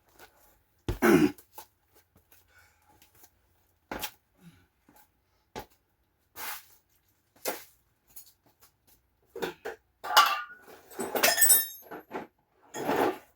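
Scattered short knocks and bumps, with a longer rattling clatter about ten seconds in.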